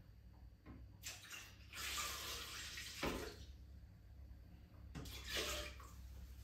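Water poured from a plastic measuring jug into the steel mixing bowl of a Monsieur Cuisine kitchen machine, splashing in two pours: a longer one about two seconds in and a shorter one about five seconds in, with a short knock about three seconds in.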